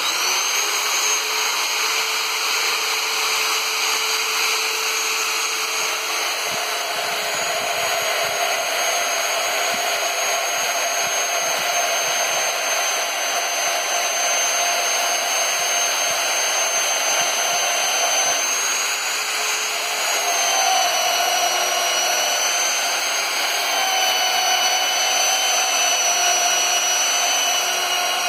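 Electric hand drill mounted in a homemade drill press stand, switched on and running steadily as it drills into a steel plate. Its motor whine shifts in pitch a few times.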